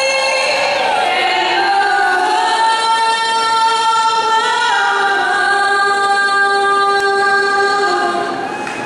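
A woman singing slow, long-held notes. The last note fades away just before the end.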